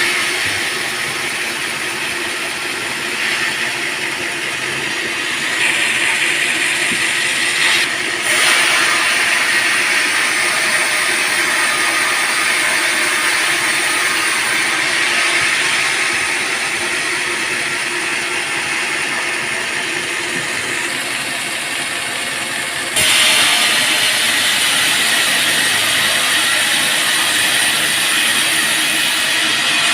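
Band sawmill running and cutting through a teak log, a steady loud grinding whir that jumps in level a few times.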